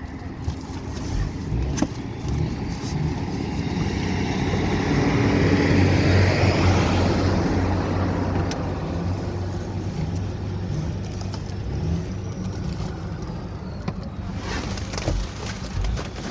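A motor vehicle going by, its engine and tyre noise growing louder to a peak about six seconds in and then fading, with a few sharp knocks from handling over it.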